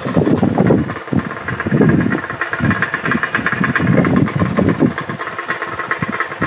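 An engine running steadily at idle, a continuous even throb with no change in speed.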